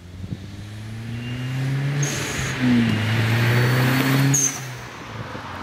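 Hyundai Genesis Coupe running through a TurboXS catback exhaust. The exhaust note swells over the first couple of seconds, stays loud for nearly two seconds, then drops back to a quieter steady idle about four and a half seconds in.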